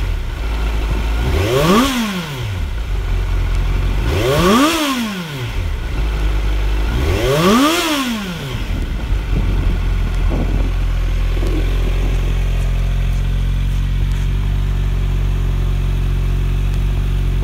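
2019 Kawasaki Z900's inline-four through a GP S1 exhaust, revved in neutral three times, each blip rising and falling about three seconds apart, then settling into a steady idle about nine seconds in.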